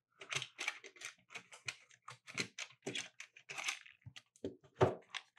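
Small clicks and scrapes as the bottom plate of a Simply NUC Chimney Rock mini PC is worked loose and lifted off its case: an irregular string of light handling noises, with a slightly louder knock near the end.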